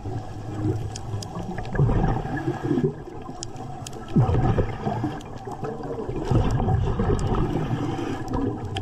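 Underwater bubbling and gurgling, most likely a diver's exhaled breath, swelling in waves about every two seconds.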